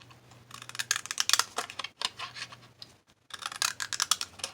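Decorative scallop-edge scissors cutting around the edge of a tag, in runs of quick crisp snips with short pauses between.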